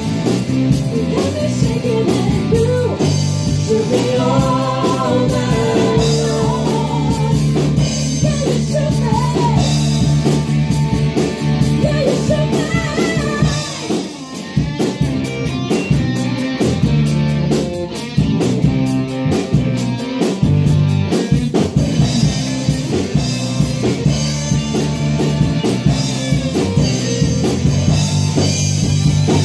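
A woman singing a rock song into a microphone over amplified accompaniment of electric guitar and drums. In the second half her voice drops out while the guitar and drums carry on.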